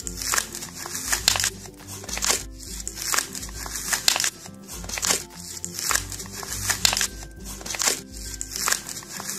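Plastic and cardboard toy packaging crinkling and crackling in repeated short bursts as it is torn open by hand, over steady background music.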